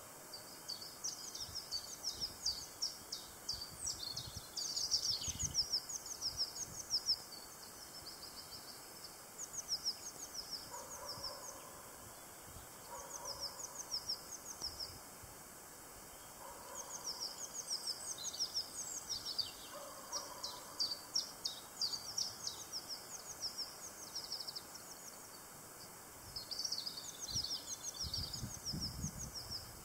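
A songbird singing repeated phrases of quick, high, down-slurred chirps, with a pause every few seconds. A fainter low call comes a few times in the middle, and low rumbles near the end.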